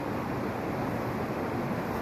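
Steady rushing of a river flowing by, an even noise with no distinct events.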